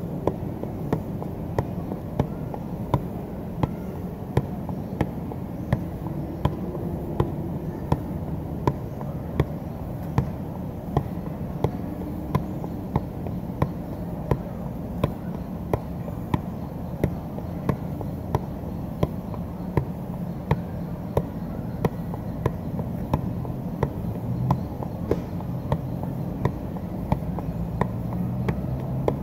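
A soccer ball being juggled without a break: a steady, even run of light thuds, about three touches every two seconds, over a steady low background noise.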